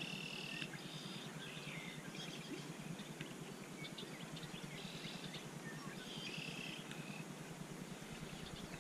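Birds chirping in short high phrases, about five times, over a steady faint hiss of outdoor background noise.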